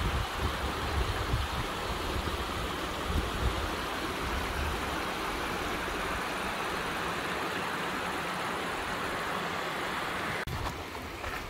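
Small mountain stream trickling over rocks, a steady water sound, with wind rumbling on the microphone in the first half. The water sound drops away abruptly about ten seconds in.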